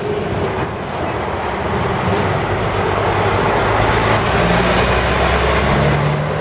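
City street traffic close by: the steady drone of a large vehicle's engine over road noise, its low hum a little stronger past the middle.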